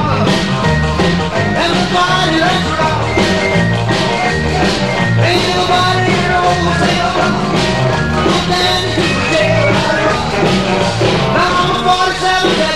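Rock and roll music with a steady beat, filling the whole soundtrack.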